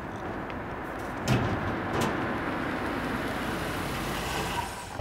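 A car pulling up, its engine and tyres making a steady rushing noise, with two short knocks about one and two seconds in.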